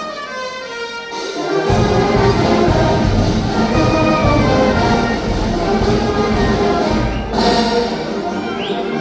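Brass band playing music with sustained trumpet and trombone notes, with a sharp bang about seven seconds in.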